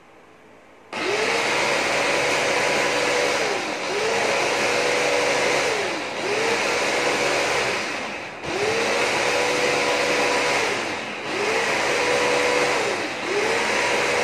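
Electric food chopper with a press-down motor top, running in pulses as it chops green material in its steel bowl. It starts about a second in and runs in about six bursts of roughly two seconds, the motor pitch rising as each burst starts and falling as it stops.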